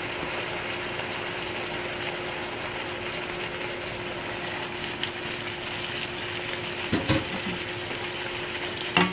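Chicken and vegetables in sauce sizzling and bubbling in a hot wok, steady throughout with a faint low hum underneath. Two short knocks come near the end as the noodles go in.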